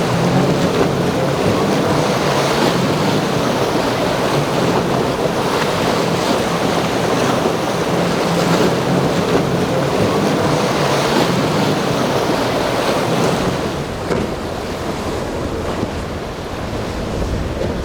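Boat engine droning as it runs through breaking surf, with waves crashing and wind buffeting the microphone. The engine hum fades out about thirteen seconds in, leaving surf and wind.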